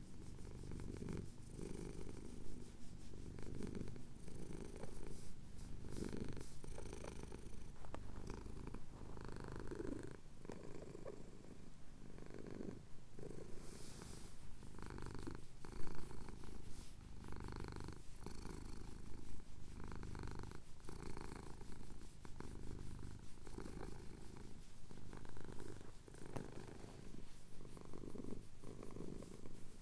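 Domestic cat purring as its chin is scratched: a continuous low rumble that rises and falls with its breathing.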